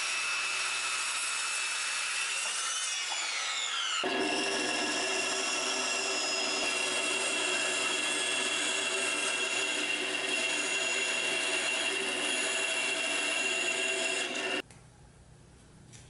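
A handheld circular saw cutting a wood board, its motor whine falling as it winds down a few seconds in. Then a bandsaw cutting through a wood block, running steadily until it stops abruptly near the end.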